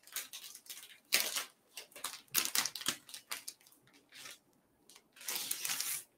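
Clear plastic wrapping crinkling and tearing in irregular bursts as it is pulled off a book by hand, with a longer stretch of crinkling near the end.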